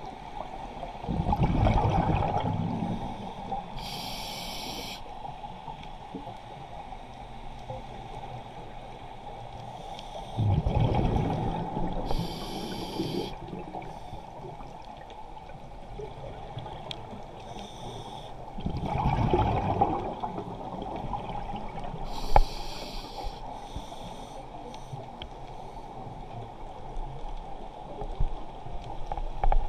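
Scuba diver breathing through a regulator underwater: three slow breaths, each a short hiss of air drawn through the regulator and a loud gurgling rush of exhaled bubbles, about nine seconds apart.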